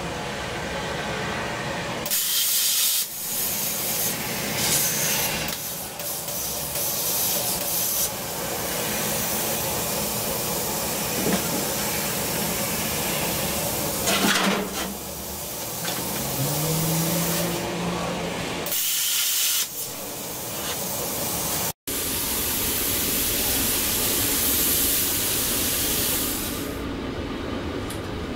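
Air plasma cutter running, a harsh hiss of the arc and compressed air as it cuts metal, breaking off and starting again several times.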